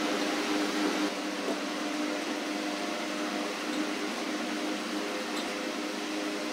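Electric fan running, a steady hum with a few constant low tones.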